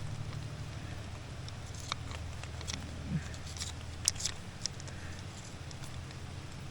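Faint, scattered clicks and scrapes of metal climbing gear against rock as someone works at a nut stuck fast in a crack. A steady low hum of wind runs underneath.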